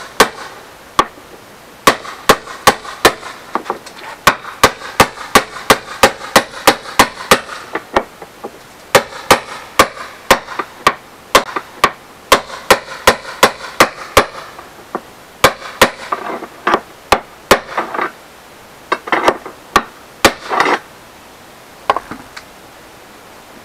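Hammer blows on a bolt, driving it through a tight press-fit hole. The blows come in steady runs of about two a second with short pauses between runs, grow sparser about halfway through, and stop a couple of seconds before the end.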